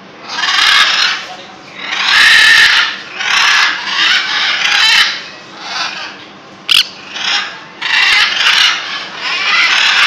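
Parrots screeching: a string of about nine harsh, raspy calls, each half a second to a second long, with short gaps between.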